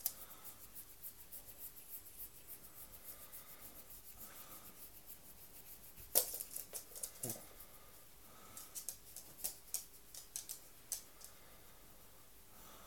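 Fingers scratching a chihuahua's fur around its head and ears close to the microphone: faint, rapid scratchy clicks, with a louder cluster of clicks about six seconds in and more scattered ones a few seconds later.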